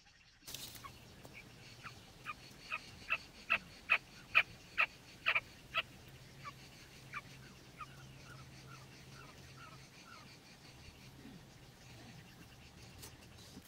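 A quail calling: a series of short, sharp notes, about two or three a second, that grows louder and then fades and slows. A few fainter, softer notes follow, over a faint steady low hum.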